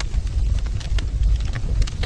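Wood fire in a fireplace crackling: irregular sharp snaps and pops, several a second, over a steady low rumble of the burning fire.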